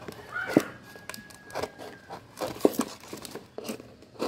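Knife cutting and piercing holes in a thin cardboard box: irregular clicks, crackles and scratching of the card, with short squeaks as the blade drags through it.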